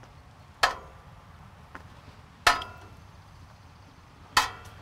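Three sharp metallic clinks about two seconds apart, each ringing briefly: a metal cooking utensil knocking against metal.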